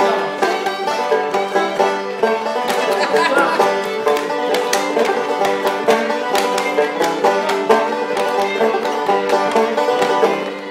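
Lively folk tune on banjo and fiddle, with the clacking of a wooden limberjack dancing doll tapped on its board.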